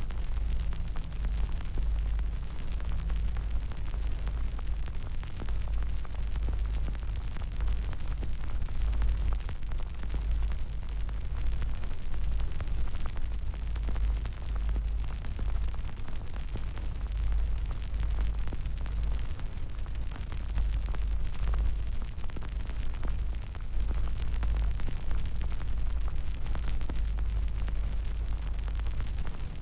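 A large fire burning: a steady deep rumble with dense crackling.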